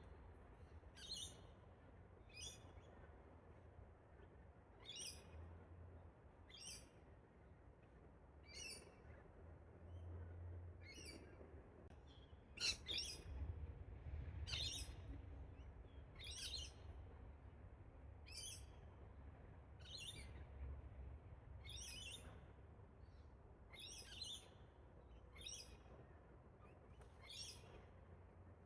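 A bird calling in short, high-pitched notes, one about every one and a half to two seconds, over a faint low rumble.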